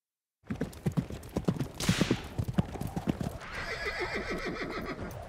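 Horse hoofbeats clip-clopping in quick irregular knocks, then a horse whinnying for the last two seconds.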